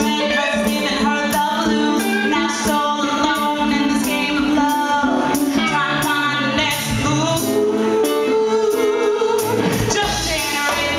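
Live band playing a song, with electric guitar, bass, drums and acoustic guitar behind a woman singing lead. A long held sung note comes about seven seconds in.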